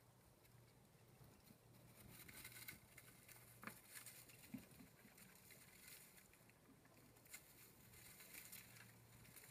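Faint pattering and scratching of pet mice moving about their cage, with small clicks scattered through it, over a low steady hum.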